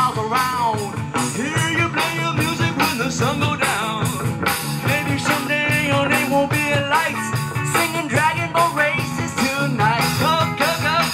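Live rock band playing through a PA: electric guitars over bass and drums, with a melodic lead line sliding up and down in pitch.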